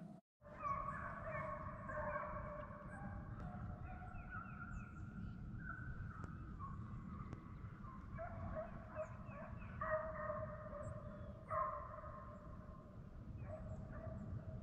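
A pack of deer hounds baying on a chase, several dogs giving long, overlapping howls and bawls over a steady low rumble.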